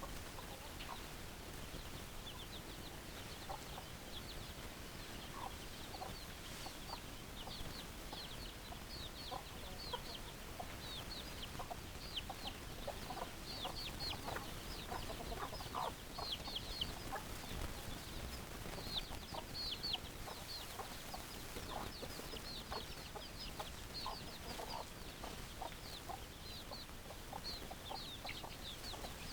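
Chickens clucking in short scattered calls, with a continual chorus of short, high, downward-sliding chirps over them.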